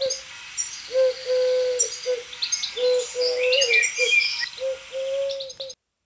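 A dove cooing: a series of low, held coos, each about a second long, with short high chirps from small birds in the background. It cuts off suddenly near the end.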